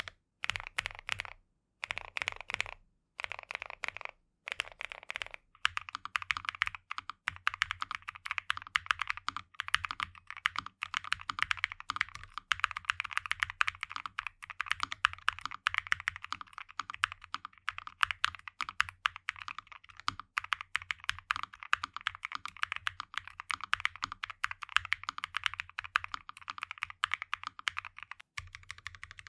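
Typing on a NuPhy Nos75 low-profile mechanical keyboard: a few short bursts of keystrokes, then steady fast typing from about five seconds in.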